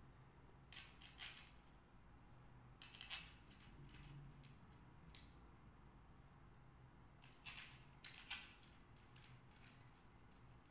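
Faint metallic clicks and clinks in three short clusters, about a second in, around three seconds, and again between seven and eight and a half seconds: steel clutch spring bolts being handled and set into the pressure plate of a Honda CBX 1000 clutch.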